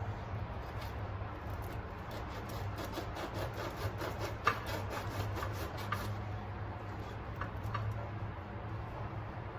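Small clicks, taps and rubbing of objects being handled, the sharpest about four and a half seconds in, over a steady low hum.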